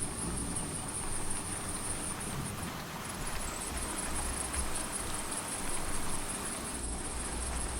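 Rain ambience: a steady hiss of rain with a high cricket trill over it, which drops out briefly about three seconds in. A soft low rumble of distant thunder runs underneath.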